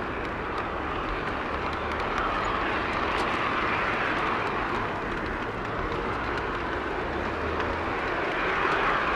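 Garden-scale model train running along its track, a steady rolling rumble with faint irregular clicks.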